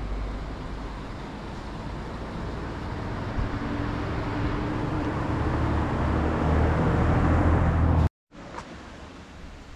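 A road vehicle going by close, its engine and tyre rumble growing steadily louder, then cut off abruptly about eight seconds in, leaving fainter outdoor background noise.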